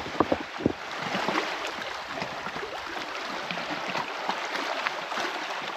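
Small waves lapping and splashing at the loch's edge, with a few sharp slaps in the first second.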